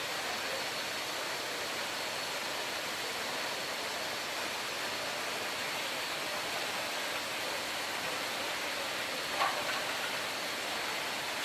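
Steady hiss of bottling-plant machinery noise with a faint high whine, and a single short knock about nine seconds in.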